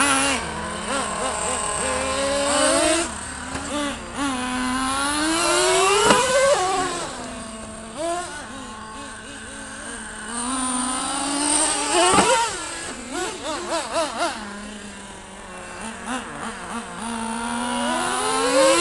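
Small two-stroke nitro engines of Traxxas T-Maxx and S-Maxx RC trucks, revving up and down as the trucks drive. The pitch climbs and drops again and again, with the loudest high-revving runs about six and twelve seconds in and near the end.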